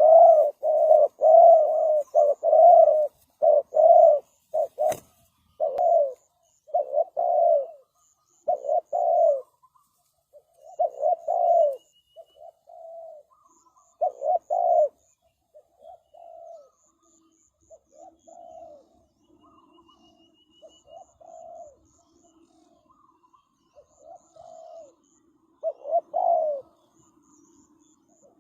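Spotted doves cooing: a long series of short repeated coos, loud and close together for the first dozen seconds, then fainter and more spaced out. A single sharp click sounds about five seconds in, and faint high chirps from a small bird run underneath.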